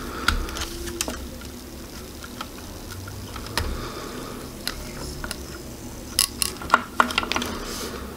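Scattered small clicks and scrapes of a soldering iron tip against a potentiometer lead and circuit board as the pot is wiggled back and forth to free it, with a run of sharper clicks near the end.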